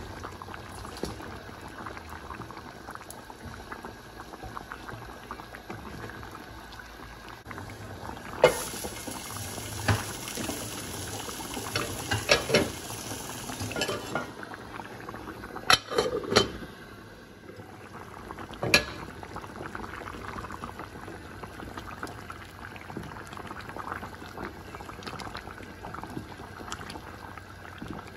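A pot of moong dal with fish heads boiling hard, a steady bubbling and blipping. A few sharp knocks break through between about 8 and 19 seconds in.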